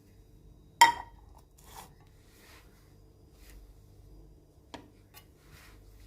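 A sharp ringing clink of a hard object just under a second in, then soft rustling and a few light clicks, over a low steady hum.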